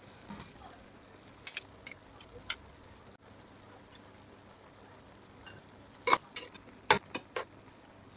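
A spoon knocking and clinking against a stainless steel pot as rice is layered in: a few short, sharp knocks about a second and a half in, then another cluster about six seconds in.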